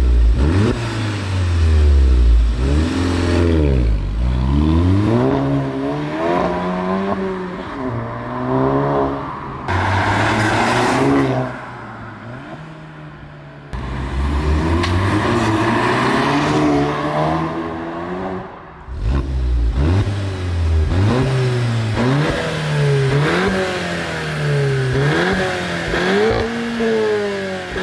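VW Golf GTI Mk7 turbocharged 2.0-litre four-cylinder exhaust, revved again and again, the pitch rising and falling with each rev, with a quieter spell about halfway through. This is the sound of a 3-inch decat pipe with the stock cat-back exhaust and its resonator still fitted.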